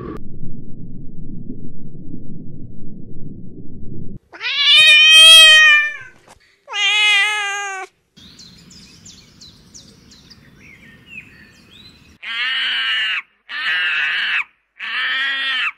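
A low rumble from an American alligator, cut off suddenly, then a domestic cat meowing twice, the first meow long and wavering. A Barbary macaque follows with three short calls near the end.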